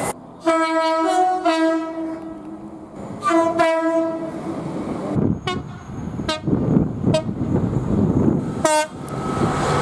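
Train horn sounding two blasts: the first about two seconds long, with a second, higher note joining in partway to make a chord, and the second about a second long. Then comes the rumble of the train running by, broken by several very short tones.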